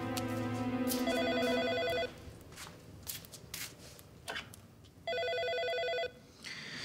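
Cordless home phone ringing with a rapid electronic warble: two rings about a second long, the second about four seconds after the first.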